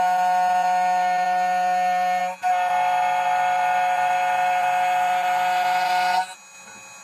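The 2M2 Tank 2 Pro key cutting machine's spindle runs with a steady high-pitched whine while it mills a Honda HON66 key blank down in width. It briefly dips about two and a half seconds in, runs on with added hiss, and cuts off near the end.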